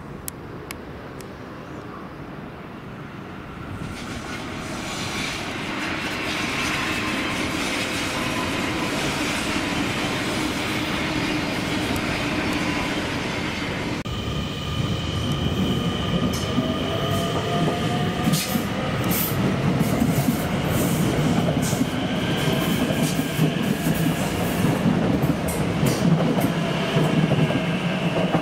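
Electric passenger train approaching and growing louder, then an NS Sprinter Lighttrain (SLT) electric multiple unit rolling in along the platform. Its motors whine in gliding tones over the rumble of the wheels, with many short high squeals and clicks from the wheels on the rails in the second half.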